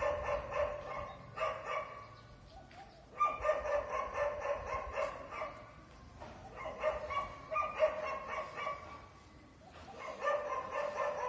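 Street dogs barking in rapid volleys: about five bouts of quick barks with short pauses between them.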